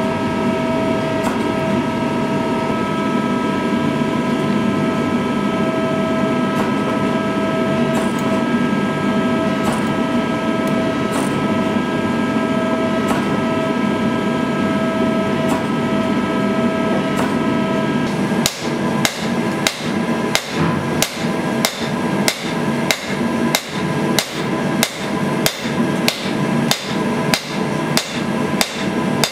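A forging press running steadily with a whine for the first ~18 s. Then a hand hammer strikes hot steel on an anvil, about two blows a second.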